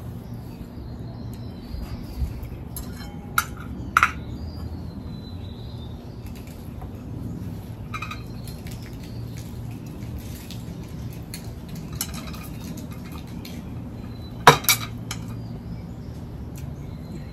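Chopsticks clicking and scraping against ceramic bowls and a serving plate as noodles are served and eaten. There are scattered light clinks, the loudest about fourteen and a half seconds in, over a low steady hum.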